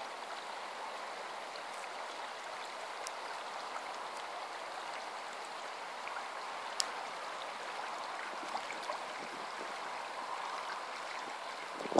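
Shallow river water flowing steadily over rocks in a riffle, an even rushing sound, with a single brief click a little past halfway.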